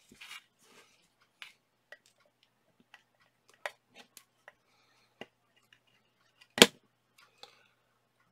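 Small, scattered clicks and light scrapes of conductive tape being peeled off its roll and cut with a utility knife on a cutting mat, with one louder sharp click late on.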